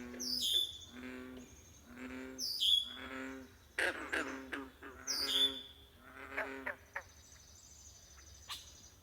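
Pond frogs calling, low pitched croaks repeating about once a second and stopping about seven seconds in. A bird's short high falling call comes three times over them, and a thin high steady tone is heard near the end.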